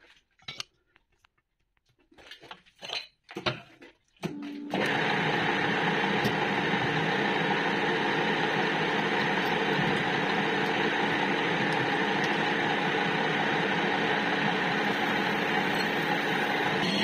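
A few clinks and knocks of metal parts, then about five seconds in a metal lathe starts up and runs steadily, spinning a workpiece in its chuck while it is machined and chips fly off.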